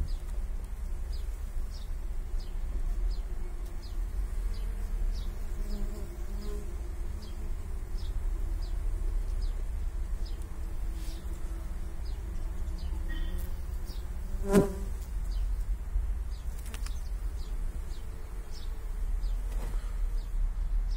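Honeybees buzzing around an open comb, the wavering hum of their wings rising and falling, with one bee buzzing loudly close past the microphone about two-thirds of the way through. A faint high tick repeats just under twice a second behind it, over a low rumble.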